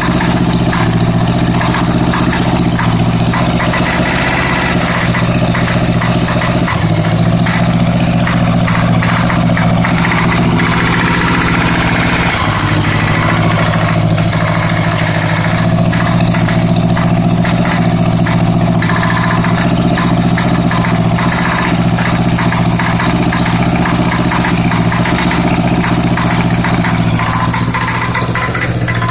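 Honda Goldwing GL1100 flat-four engine idling with a rattle running through it. The engine speed shifts slightly twice, up a little about 7 seconds in and down about 12 seconds in.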